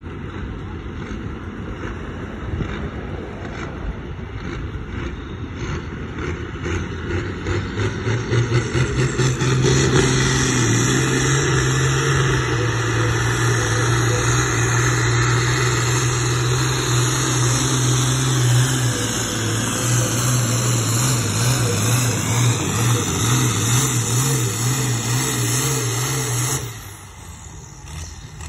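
Diesel farm tractor pulling a sled at full throttle. The engine builds over the first several seconds into a loud, steady drone, then drops off abruptly about two seconds before the end as the pull ends.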